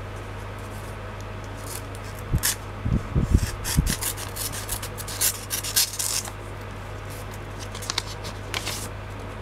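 Cardboard and paper rustling and scraping as hands rummage in a cardboard mailing box, in irregular bursts that start about two seconds in and come again near the end, with a few dull bumps around three seconds in.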